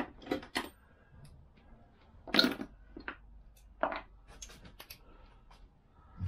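Scattered light metallic clinks and taps, about half a dozen at irregular intervals, as cylinder-head nuts and a socket are handled and run onto the studs of a Vespa PX engine by hand.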